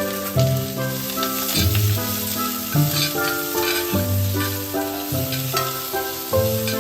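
Food sizzling and crackling in a frying pan, over instrumental background music.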